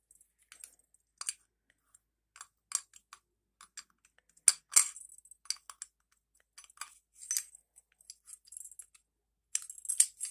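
Light metallic clicks and scrapes of 1911 pistol parts being handled during reassembly, as the recoil spring is seated and the slide is fitted onto the frame. Scattered irregular clicks, the sharpest about four and a half seconds in and a cluster near the end.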